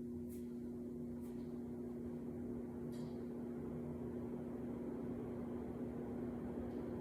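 Minka Aire ceiling fan running on high speed: a steady motor hum with the rush of moving air, and a few faint ticks.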